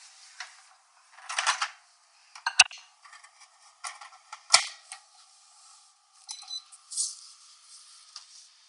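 Clicks and knocks of a microwave oven being handled: a short rustle, then two sharp clicks about two seconds apart, and a few brief high beeps a little after the middle.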